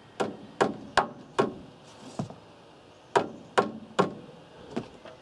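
Sharp knocks on timber: a run of four firm strikes, a weaker one, three more firm strikes, then a last weaker one, about two to three a second.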